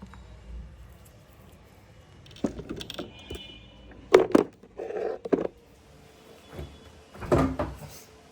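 Scattered knocks and clatters of household objects being handled, loudest about four seconds in and again near the end, with a brief high ringing tone about three seconds in.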